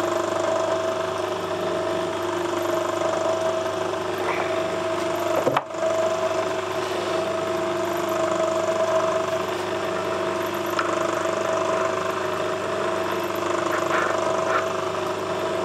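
Metal-turning lathe running with a steady hum that holds two clear tones, breaking off for a moment about five and a half seconds in. A few light clicks come from parts being handled on the machine.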